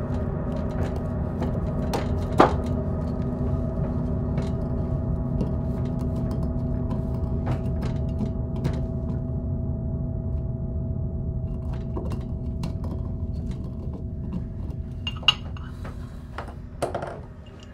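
Glassware clinking and tapping, with a few sharper knocks, over a steady low drone that fades near the end.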